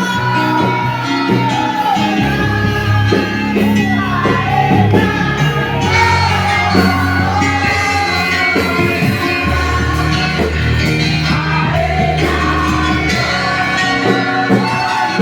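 A song with a singing voice over a band: held bass notes underneath and a melody line wavering above, continuous and loud throughout.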